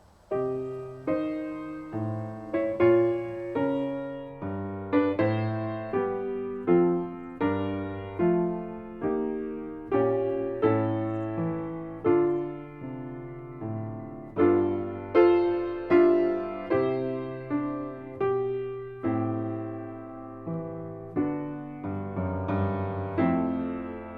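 Background piano music: a slow, gentle piece of chords and single notes, each note struck and left to fade.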